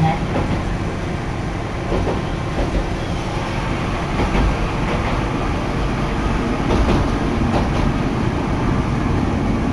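Hankai Tramway streetcar running along the track, heard from inside the car: a steady low rumble and running noise with a few scattered clicks from the wheels over the rails.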